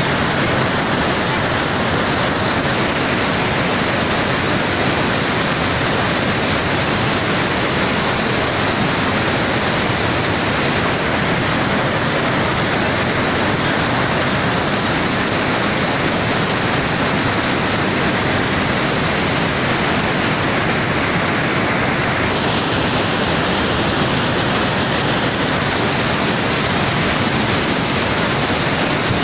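River in flood pouring through a weir's floodgate: muddy water rushing and churning in a loud, steady rush at extreme, flood-alert flow.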